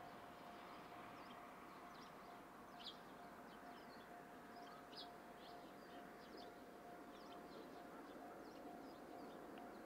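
Quiet rural background with small birds chirping in short scattered calls and a faint steady tone throughout.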